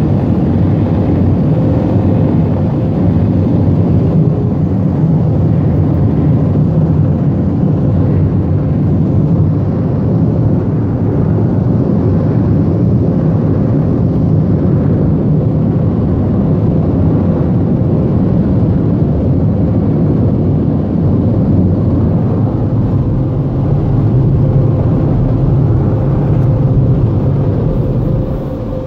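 Automatic car wash machinery running, heard from inside the car's cabin: a loud, steady roar with a faint steady hum through it, which drops off near the end.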